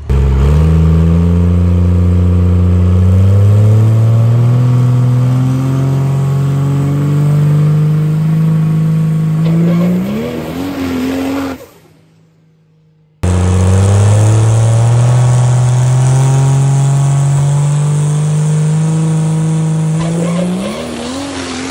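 Cummins diesel drag truck launching and running down the track under full power. The engine note jumps at the launch, climbs steadily for about ten seconds, then cuts off suddenly. After a short gap the same run plays again with the same climbing note.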